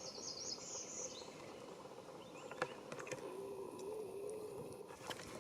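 Faint outdoor ambience with a small bird's quick high chirping in the first second, then a few faint clicks and a faint wavering hum.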